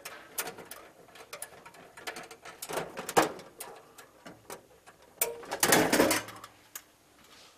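Clicks, taps and rattles of an electrical switchboard's cover and fittings being handled, with a louder clatter about six seconds in as the white cover panel is lifted off.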